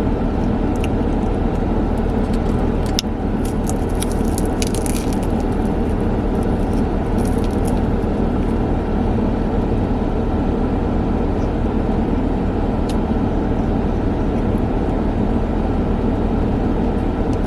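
Steady hum and rush inside a parked car's cabin, the engine idling with the ventilation fan running. A few brief crinkling clicks come about three to eight seconds in.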